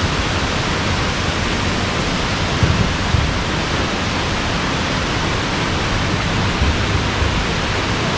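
Steady rushing hiss of falling water from the indoor river's small waterfalls, over an uneven low rumble.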